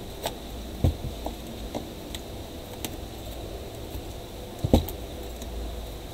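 Clicks and knocks of a plastic portable-speaker housing being handled and worked with a hand tool, with two louder knocks, one about a second in and one near five seconds.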